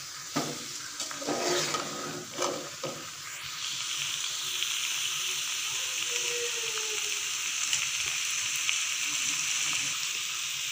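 A metal spoon stirring and scraping through aloo gobi gosht in a pot, several strokes in the first three seconds, then a steady sizzle of the curry frying.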